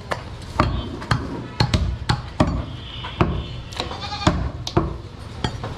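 Butcher chopping goat meat: a dozen or so sharp strikes at an uneven pace, about two a second, with an animal bleating in the middle.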